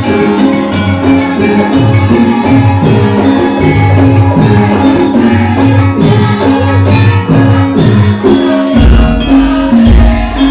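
Traditional Javanese lengger accompaniment music: pitched percussion and drums in a steady rhythm with sharp jingling strokes on top, and two deep booming hits near the end.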